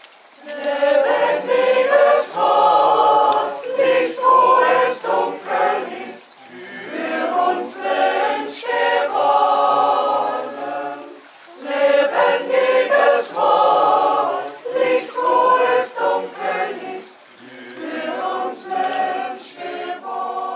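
Choir singing a hymn in phrases of about five seconds, with short breaks between them.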